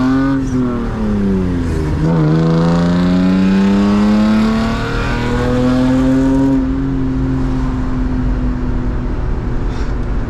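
1999 BMW E36 328i's straight-six engine revving hard through the gears of its manual gearbox. The revs climb, sag through a gearchange about two seconds in, climb again in the next gear, then hold fairly steady and ease off after about six and a half seconds.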